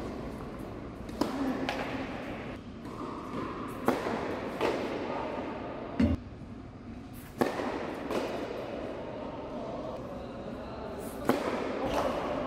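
Tennis ball struck by racquets and bouncing during a doubles rally on an indoor hard court: a string of sharp pops spaced one to several seconds apart, each echoing in the large hall.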